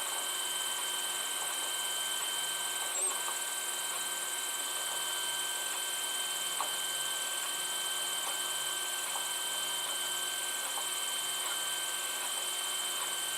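FDM 3D printer running mid-print: a steady hum with a thin, constant high whine. A faint click about three seconds in.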